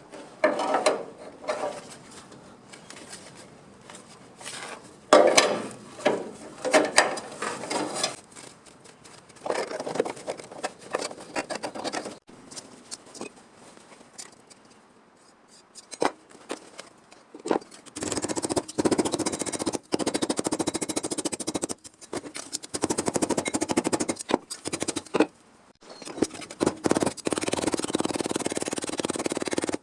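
Bodywork on a car's sheet-metal rear fender: scattered knocks and scraping strokes at first, then, from a little past halfway, long stretches of steady rasping noise with a few abrupt breaks.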